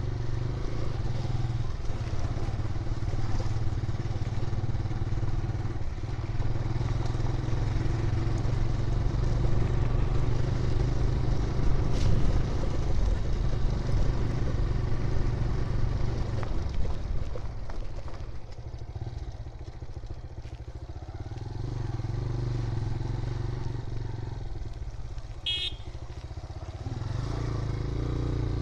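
Motorcycle engine running under way with road and wind noise. The engine note eases off and drops in level twice in the second half. A brief high chirp comes near the end.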